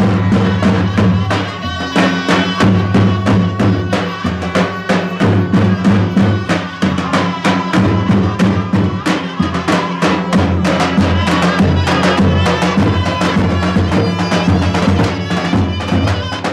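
Albanian folk dance music with a driving, steady drum beat and a deep bass drum under a held melody line.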